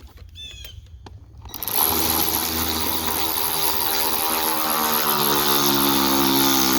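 Power drill motor running continuously for about six seconds, starting about a second and a half in. Its pitch sinks slowly as it works, and it stops abruptly.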